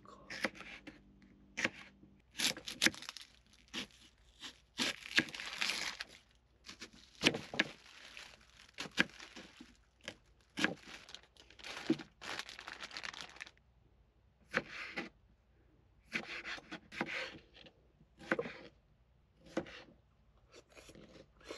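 A thin plastic bag crinkling and rustling as it is handled, in irregular bursts, mixed with short knocks of a chef's knife cutting through vegetables onto a wooden cutting board.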